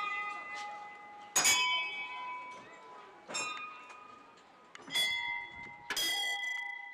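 Metal bells struck about four times, one to two seconds apart, at a few different pitches. Each strike rings on with several clear tones that slowly fade.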